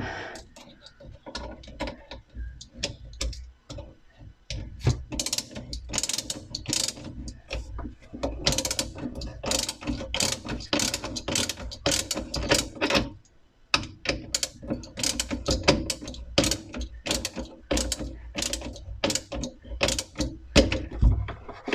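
Ratchet tool clicking in quick, uneven runs as a part of a Bosch 800 series dishwasher is screwed back on and tightened, with a short pause about two-thirds of the way through.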